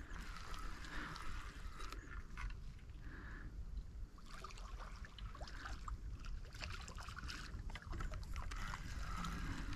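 Faint water splashing and sloshing at the water's edge, likely a small carp being brought in, over a steady low rumble.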